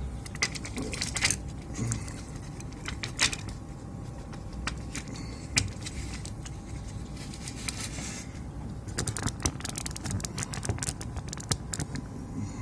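Scattered sharp clicks and light rattles from parts and tools being handled on a repair bench, with a dense run of clicks about nine seconds in.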